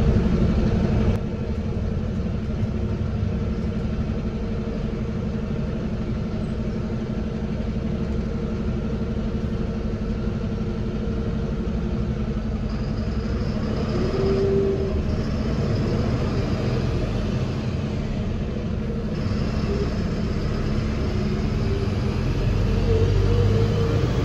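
Steady low rumble of a sleeper coach bus's engine and running gear, heard from inside the cabin, growing a little louder near the end as the bus pulls away from the toll booth.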